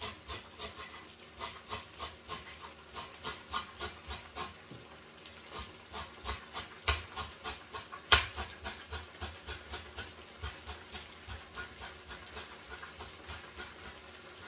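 Kitchen knife chopping fresh dill on a cutting board: a steady run of quick taps, about three or four a second, with one louder knock about eight seconds in.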